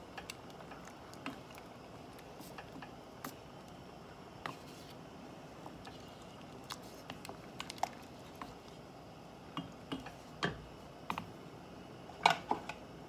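A wooden spoon stirring wet rice stuffing in a stainless steel saucepan, with scattered light knocks of the spoon against the pot, the loudest near the end.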